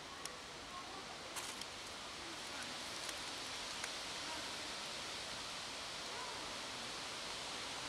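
Kittens eating dry cat kibble: a few short sharp clicks of crunching over a steady outdoor background hiss that grows slightly louder.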